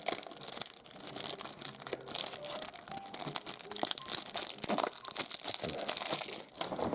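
A wrapped pack of trading cards being torn and pulled open, the wrapper crinkling in a dense run of crackles that stops near the end.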